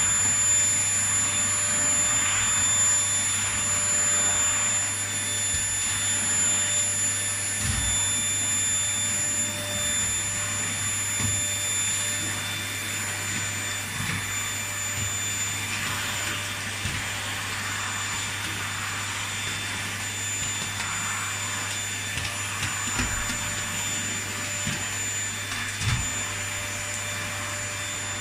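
Household vacuum cleaner running steadily, its motor's whine and airflow hum unbroken, with a few soft low knocks now and then.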